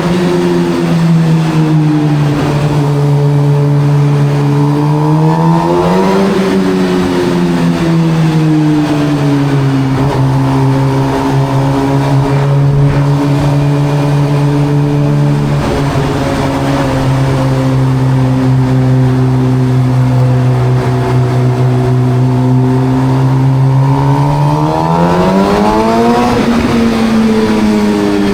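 Suzuki GSX-R 750 inline-four sport bike's exhaust cruising under steady throttle. The engine note climbs briefly and drops back about six seconds in and again near the end.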